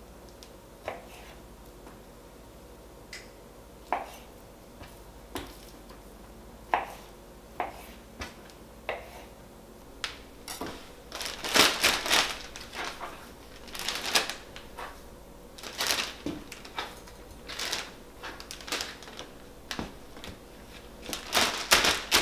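A knife cutting steak into cubes, knocking on the cutting board about once a second. From about halfway on, a plastic zip-top bag crinkles in bursts as the meat pieces are dropped into it.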